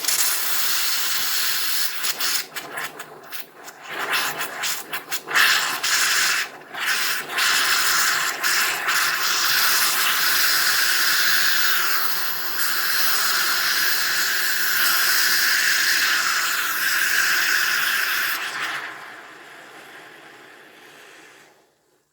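Carbonated water kefir hissing and spraying out of an over-pressurised bottle as its cap is released: a long loud hiss, sputtering for the first several seconds, then steady, fading out near the end. The pressure comes from heavy carbonation built up during a long second fermentation.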